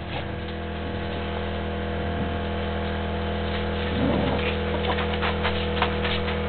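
A steady hum with several fixed pitches, under a basset hound and a dachshund play-fighting on a plastic tarp: a brief low growl about four seconds in, then scattered clicks and rustles of paws scrabbling on the tarp.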